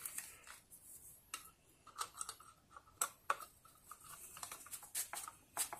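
A screwdriver driving a screw back into an opened septic-tank air blower: faint, irregular light clicks and ticks of metal on metal.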